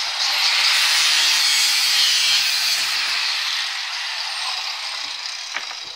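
Power tool cutting through the steel of a steak knife, a steady high grinding rasp that tapers off over the last couple of seconds.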